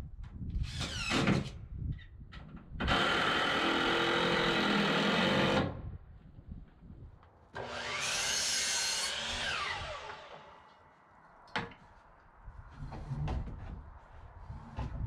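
Electric power saw run twice, each time for a few seconds, cutting wood. The second run winds down in a falling whine as the blade coasts to a stop. A single sharp knock follows near the end.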